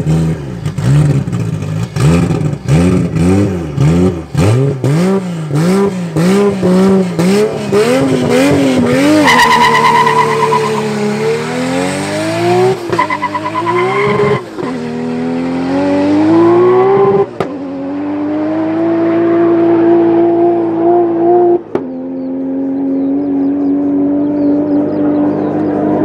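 Heavily tuned 1400 hp Toyota Supra with a turbocharged 2JZ straight-six, revved up and down in quick even blips on the start line, about one and a half a second. About nine seconds in it launches and pulls hard through the gears: the pitch climbs in each gear and drops sharply at about five upshifts, each gear lasting longer as the car speeds away down the strip.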